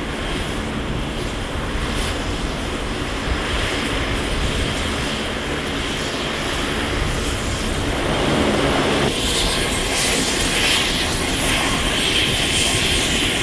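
The Blue Angels' C-130J Super Hercules 'Fat Albert' taxiing, its four turboprop engines and propellers running steadily. The sound grows louder and higher about nine seconds in.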